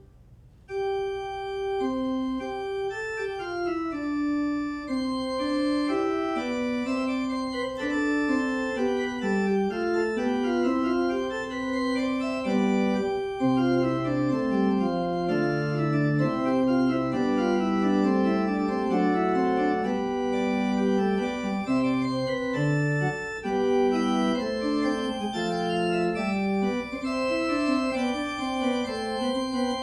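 Organ music: a slow piece of held chords, with a moving melody over sustained bass notes, starting just under a second in after a short pause.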